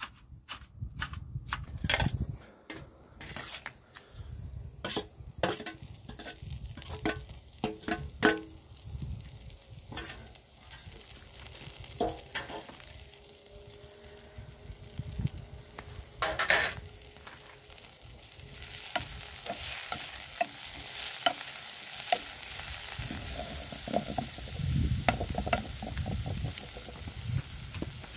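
A cleaver chopping greens on a metal plate in a run of sharp, irregular taps. About two-thirds of the way through, the chopped greens are frying in a pan and a steady sizzle sets in.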